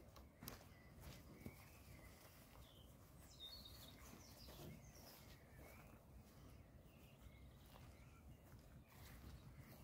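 Near silence: faint bird chirps over a low outdoor background hiss, with a couple of soft clicks near the start.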